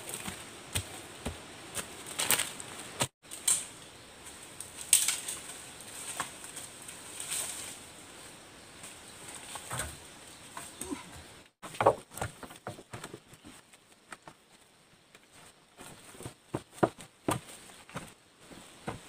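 Rustling leaves and brush with scattered knocks and scrapes as a long wooden pole is carried through undergrowth and laid across rocks.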